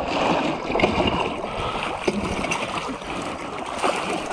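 Water lapping and splashing around an inflatable boat, with a few light knocks; no outboard motor is running.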